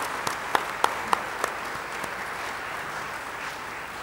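Audience applauding, with a few loud, evenly spaced claps at about three a second near the start that stop about a second and a half in; the applause then fades.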